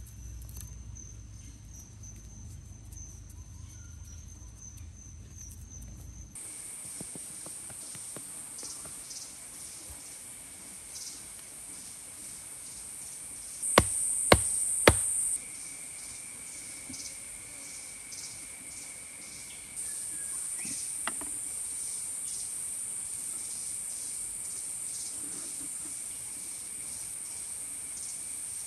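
Forest insects chirring in a high, steady, pulsing drone. About halfway through, three sharp knocks sound in quick succession.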